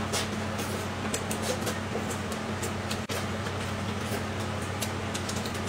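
A person eating with their hands, gnawing and chewing with many short wet mouth clicks, over a steady low electrical hum.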